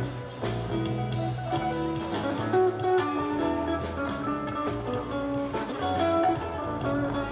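Live rock band's instrumental jam: electric guitar playing melodic lead lines over sustained bass notes and drums.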